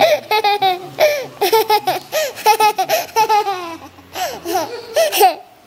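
A toddler laughing in repeated high-pitched bursts, with a brief pause about four seconds in.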